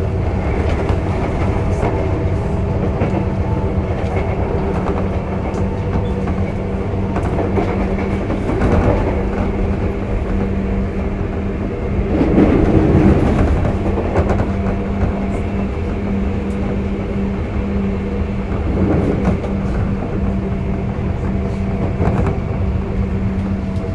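Sotetsu 8000 series electric train running at speed, heard from inside the car: a steady motor and gear hum over the rumble and clatter of the wheels on the track, with a louder rumble about halfway through.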